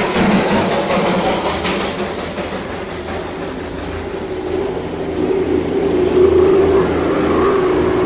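Darjeeling Himalayan Railway toy train passing close by: the small steam locomotive chuffs and hisses steam for the first few seconds, about one stroke a second, fading as it moves on. Then the carriages roll past with a low rumble and a steady whining tone that swells near the end.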